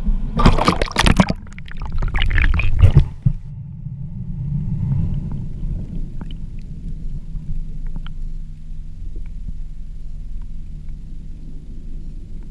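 Water splashing and churning for about three seconds as a camera rig is plunged into the sea. After that comes a steady, muffled low rumble of underwater sound picked up through the waterproof camera housing, with a few faint sharp clicks.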